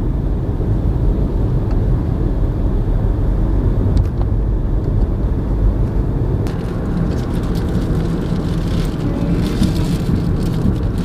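Steady low rumble of a car running, heard from inside the cabin, with a couple of light clicks about four and six and a half seconds in.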